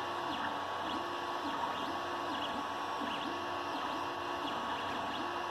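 Creality Ender 3 3D printer running a print: its stepper motors whir in short tones that jump up and down in pitch as the print head and bed move, over a steady high hum.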